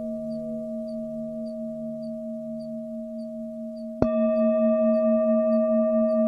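Tibetan singing bowls ringing with a slow, wavering hum. A bowl is struck about four seconds in, starting a louder ring with more overtones.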